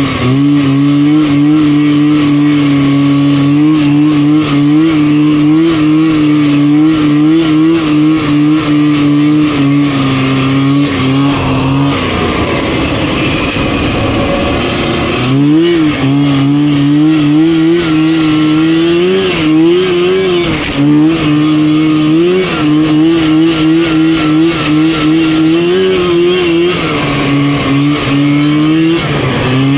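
Rotax 503 two-stroke twin of a Lynx snowmobile running hard at high, held revs, its pitch wavering slightly. About twelve seconds in, the engine note drops away into a rushing noise for a few seconds, then comes back up and holds high again.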